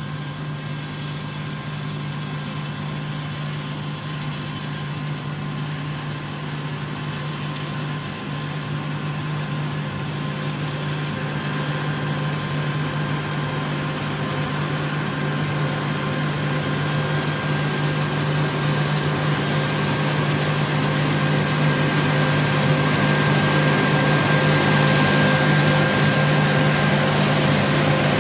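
John Deere 9996 cotton picker running while it picks, a steady machine drone with a high hiss over it. It grows steadily louder as the picker comes closer.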